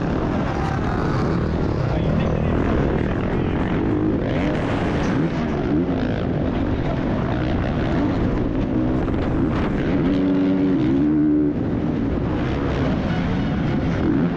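Single-cylinder four-stroke motocross engine of a Honda CRF450R at race pace, heard onboard, its note rising and falling as the throttle is worked through ruts and corners, with a brief dip about three quarters of the way through. Underneath runs a steady rush of wind and dirt.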